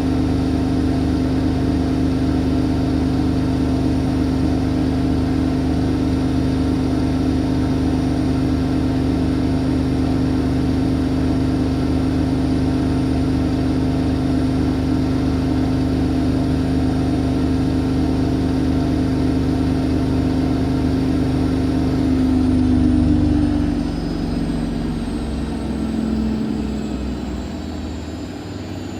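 Siemens Siwamat iQ 716 washing machine spinning at speed, a steady motor hum with a high whine; near the end it starts to wind down, the pitch falling as the drum slows at the end of the spin.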